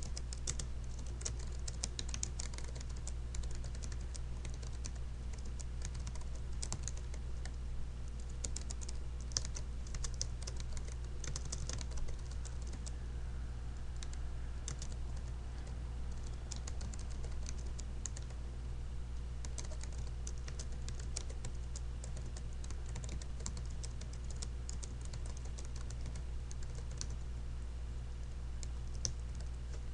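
Computer keyboard being typed on, keystrokes coming in irregular runs of quick clicks, over a steady low hum.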